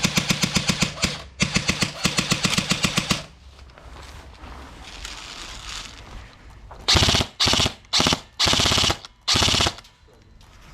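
Airsoft guns firing full-auto: two long bursts of rapid, evenly spaced shots in the first three seconds, then after a pause four short, louder bursts close by near the end.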